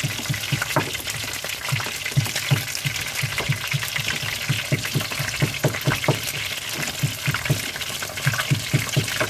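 Battered seafood (shrimp, crab and Bombay duck) deep-frying in a pan of hot oil: a steady sizzle with short low pops a few times each second.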